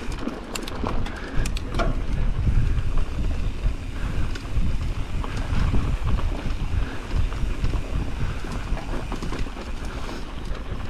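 Wind buffeting the microphone on a mountain bike ride down a dirt trail, a steady low rumble mixed with tyre and trail noise. A few sharp clicks and rattles come in the first couple of seconds.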